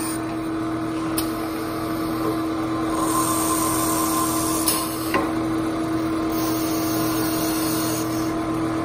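Automatic wood lathe running: a steady motor hum with the hiss of the cutter and drill working small wooden discs. Three sharp clicks of the machine's parts, about a second in and twice around the middle.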